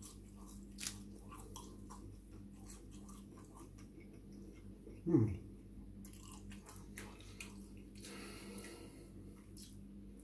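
Close-up chewing and crunching of crisp food, heard as a run of soft irregular clicks. About five seconds in comes one short sound falling steeply in pitch, the loudest moment.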